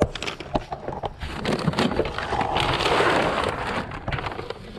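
Plastic pet-food bags and cardboard boxes being rummaged through by hand: rustling and crinkling with scattered knocks, swelling into a longer stretch of rustling about two to three seconds in.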